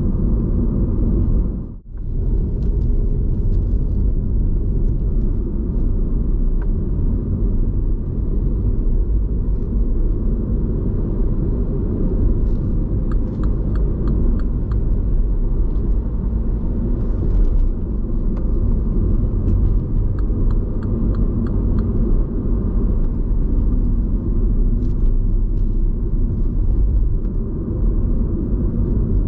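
Engine and road noise inside the cabin of a 2015 MINI One 1.2 petrol hatchback while driving: a steady low rumble, with a brief dip about two seconds in.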